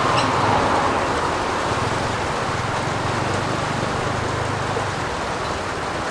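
Heavy rain falling, a steady hiss of drops. A low rumble runs under it through the middle.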